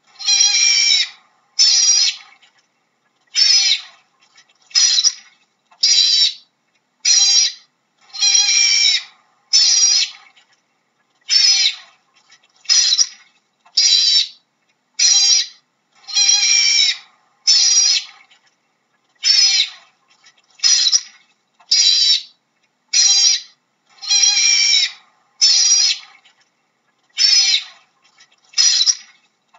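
Otter calling: a long series of high-pitched chirping calls, about one a second, some short and some drawn out to about a second, wavering in pitch, with brief silences between.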